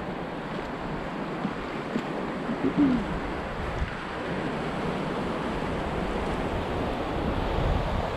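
River water rushing and lapping around an inflatable raft, with wind buffeting the microphone, heavier near the end. There is a short falling squeak about three seconds in.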